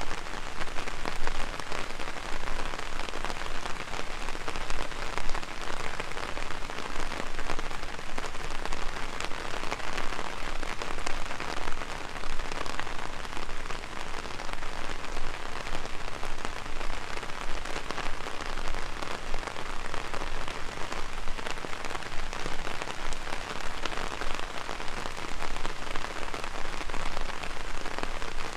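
Heavy rain drumming on an umbrella overhead, a dense steady patter of countless drops.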